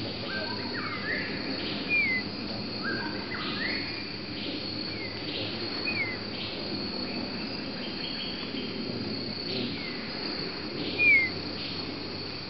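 Grey-cheeked bulbul giving short, sharp slurred call notes three times, the loudest near the end, over a steady high insect drone and the calls of other forest birds.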